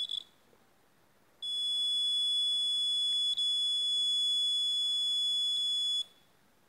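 Buzzer of a CD4011 NAND-gate luggage alarm circuit giving a couple of short chirps, then from about a second and a half in sounding one steady high-pitched tone for about four and a half seconds, with a brief dropout in the middle, before cutting off suddenly. The loop wire has been broken, opening the circuit and setting off the alarm.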